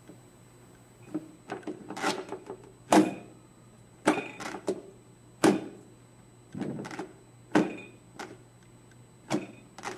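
Irregular knocks and thumps of a hand puppet bumping against a clear plastic box and its lid on a tabletop, about a dozen strokes, the loudest about three seconds in.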